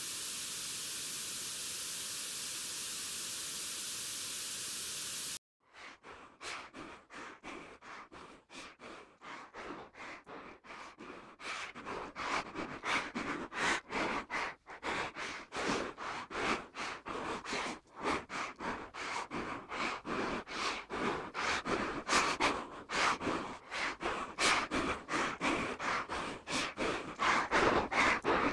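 Television static hiss for about five seconds, cutting off abruptly. Then a man panting in quick, rhythmic gasps that grow steadily louder.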